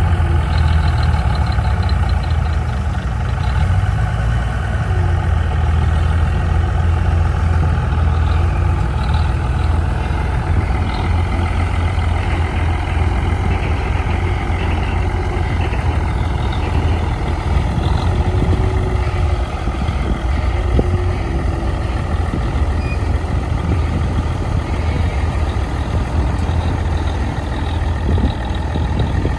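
Heavy diesel engine of earthmoving machinery running steadily with a deep, even rumble.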